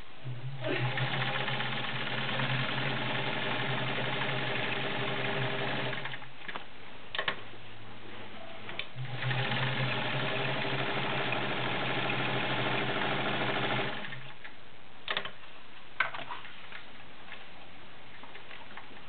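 Kenmore 1750 all-metal sewing machine with its 1.2-amp motor running and sewing in two steady runs of about five seconds each, with a pause between them. A few sharp clicks follow each run.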